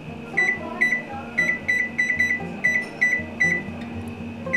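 Oven range's touch control panel beeping with each press of the timer's up-arrow key: a quick run of short, high beeps, often two or three close together, as the timer is set for one hour.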